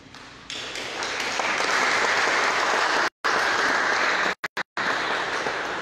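Audience applauding, starting about half a second in and building within a second to a steady level; the sound drops out for moments a few times.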